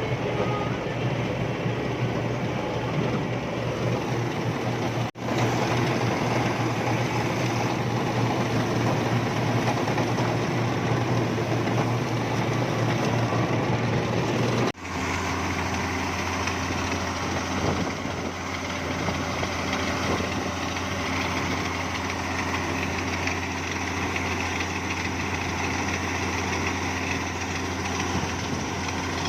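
Engine of farm harvesting machinery running steadily under a low, continuous hum. Twice it breaks off for an instant, and after the second break the engine note is lower and steadier.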